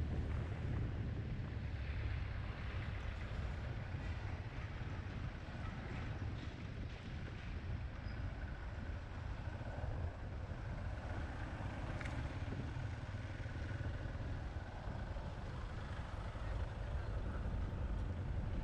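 Yamaha XT250 Serow's air-cooled single-cylinder engine running steadily at low road speed, heard from the rider's camera as a low rumble mixed with road and wind noise.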